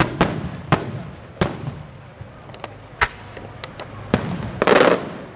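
Aerial fireworks shells from a Maltese display bursting in the sky. Several sharp bangs come in quick succession in the first second and a half, then a few more spaced out, and a louder, longer burst near the end.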